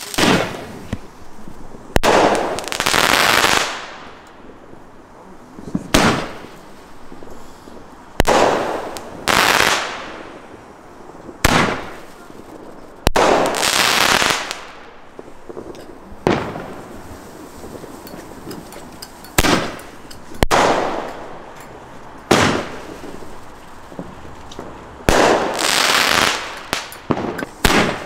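Consumer aerial fireworks going off shot after shot, about a dozen in all. Each shot is a sharp launch bang followed by a second or two of crackling and hissing as it bursts and fades.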